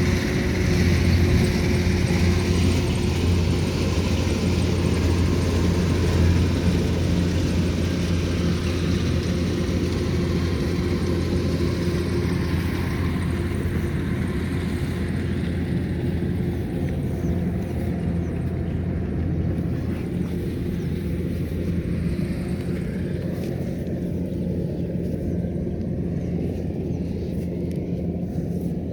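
Rice combine harvester's engine running steadily with a low hum. The higher noise slowly fades and the level drops a little over the last half, as the machine works away.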